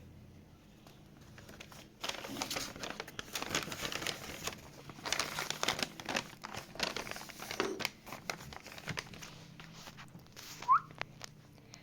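Crinkling and crackling of a squishy toy and its crinkly plastic covering being squeezed and handled. It starts about two seconds in and thins out after about eight seconds. One short rising squeak comes near the end.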